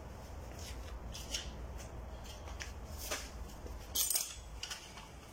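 A series of short scrapes and light clicks of things being handled, the loudest about four seconds in, over a low steady hum.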